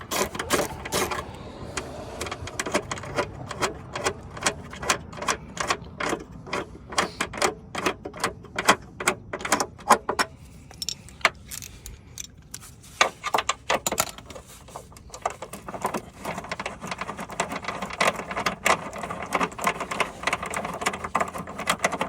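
Hand ratchet wrench clicking in quick runs as a suspension bolt is worked loose, easing off for a few seconds around the middle before clicking again.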